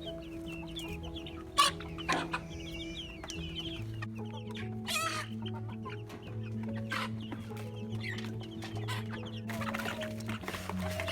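Chickens clucking and calling, with many short calls overlapping, over background music with steady held low notes.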